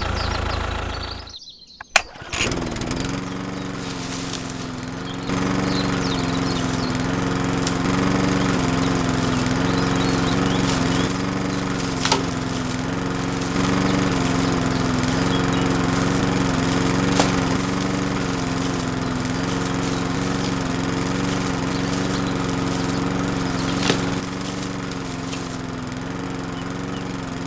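Small motor of a miniature machine running steadily with a slightly wavering hum, starting about two seconds in and getting louder a few seconds later, with a few sharp clicks over it.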